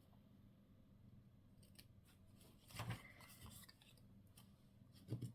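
Scissors snipping through paper or card in a short burst about three seconds in, with a faint click or two near the end; otherwise quiet room tone.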